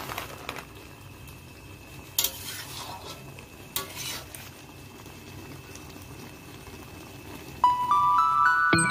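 A spatula scraping and stirring a thick vegetable curry in a metal kadai, a few strokes in the first four seconds, over a faint steady sizzle. Background music comes in near the end.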